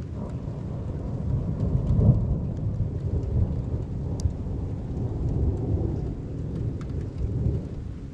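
A long roll of thunder rumbling, loudest about two seconds in and dying down near the end, with rain falling.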